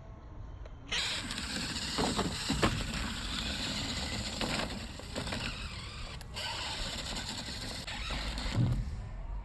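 Radio-controlled car driving over rough ground: a steady hiss of motor and wheels starting about a second in, with several knocks and bumps along the way and a heavier thump near the end.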